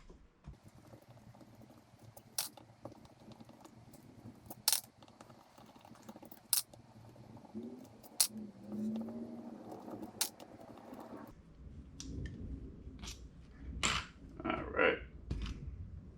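Screwdriver and small metal carburetor parts clicking and clinking while the bottom cover is taken off a carburetor, in a string of separate sharp clicks a second or two apart, with handling noise becoming louder and lower near the end.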